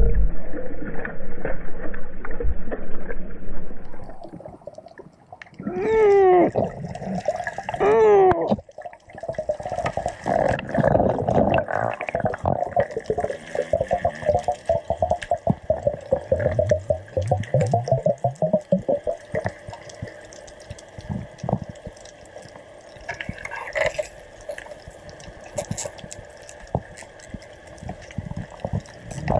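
Water at the surface, then the muffled sound of being under water: a steady wash full of small crackling clicks. Two short rising-and-falling tones come through about six and eight seconds in.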